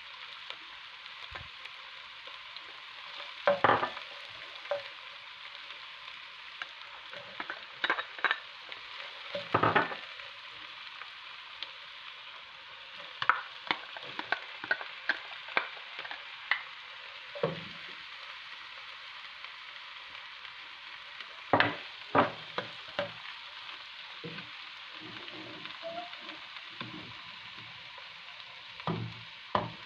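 Chopped onions and garlic sizzling in hot oil in a nonstick frying pan, with the occasional sharp knock and scrape of a plastic spoon stirring them against the pan.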